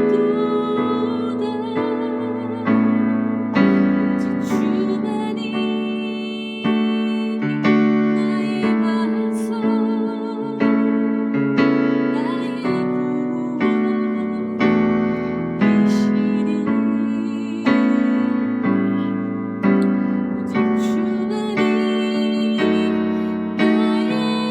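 Electric keyboard playing a slow hymn, with chords struck about once a second under a sustained, wavering melody.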